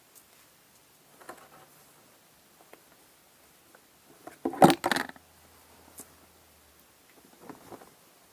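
Household handling noises in a small room: faint rustling, then a loud, brief clatter of several quick knocks and scrapes about four and a half seconds in.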